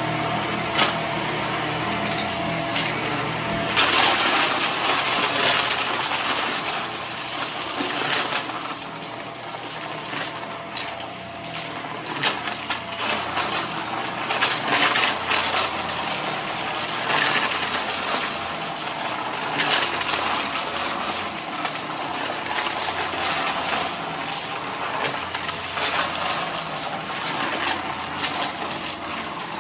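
Vacuum cleaner running and sucking up a scattered debris mess, with hard bits crackling and rattling up through it; the pickup noise grows loud about four seconds in.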